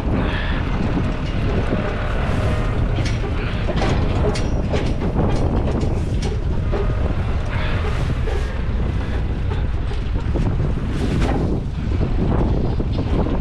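Tractor engine running steadily with a low rumble, with scattered knocks and rattles throughout.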